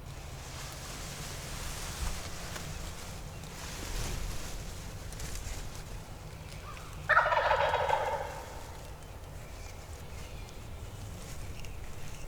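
A wild turkey gobbler gobbles once, loud and rapidly warbling, about seven seconds in.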